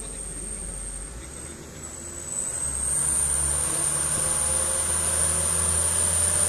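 Diesel engine of a light truck loaded with sugarcane pulling uphill round a hairpin bend, getting louder from about two seconds in as it approaches. A steady high insect drone sounds above it.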